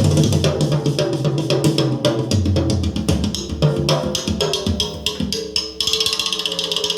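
Music with drums and bass played through a 12-inch Eminence neodymium loudspeaker under test. About six seconds in, the track thins out in the bass and a fast, even ticking rhythm takes over up high.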